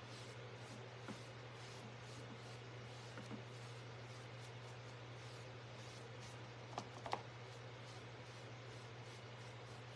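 Quiet room tone with a steady low hum and a few light taps, the loudest two close together about seven seconds in.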